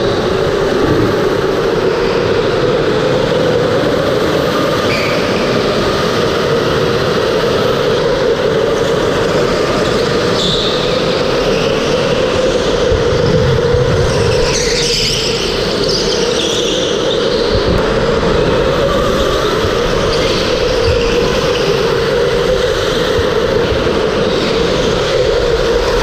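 Electric go-kart driving hard around an indoor track, heard from the driver's helmet camera: a steady motor whine under tyre and wind noise, with brief higher squeals every few seconds as the kart corners.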